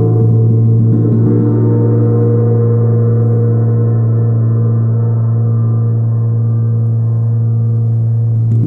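A large tuned moon gong played continuously with two felt mallets, giving a deep sustained drone with many higher tones ringing over it. The upper ring thins out in the middle and is renewed by fresh strokes near the end.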